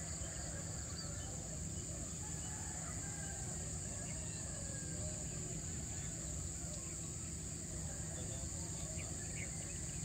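Steady high-pitched chorus of insects, unbroken throughout, over a low steady rumble, with faint bird calls and chirps here and there.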